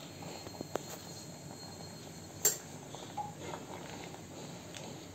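Rice dumplings in coconut milk simmering in an aluminium pot: a faint steady hiss while a wooden spatula stirs, with a few small clicks and one sharp knock about two and a half seconds in.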